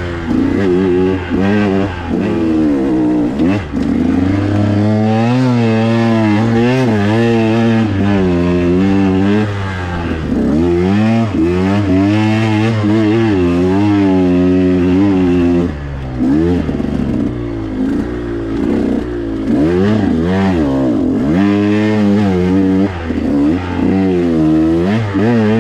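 A KTM 125 XC dirt bike's single-cylinder two-stroke engine being ridden hard, revving up and dropping off again and again as the throttle is worked, with a few deeper dips in revs along the way.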